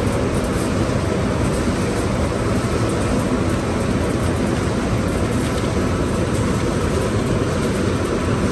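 Heavy machinery of a radiator crushing and sorting line running steadily: a loud, even, low-pitched mechanical noise with no distinct strokes or tones.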